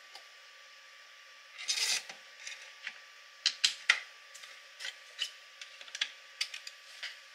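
Reassembly of a 3D-printed AK (Plastikov v3 Draco): a short sliding scrape as the recoil spring assembly goes into the receiver, then a run of sharp metal clicks and clacks as the parts and dust cover are seated.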